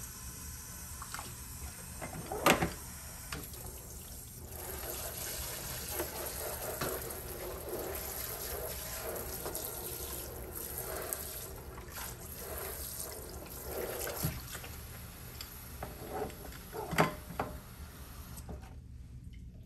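Water from a sink sprayer hose spraying and splashing inside a plastic tub as it is rinsed out, over the running faucet. A couple of sharp knocks come about two seconds in and near the end.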